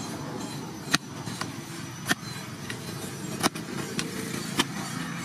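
Long-handled digging tool with a steel blade forged from a disc plough, jabbed into hard soil: four sharp chops a little over a second apart, over a steady background hiss.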